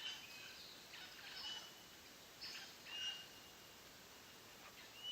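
Faint birdsong: scattered short chirps and a few thin, high whistled notes, about four of them spread through, over a light background hiss.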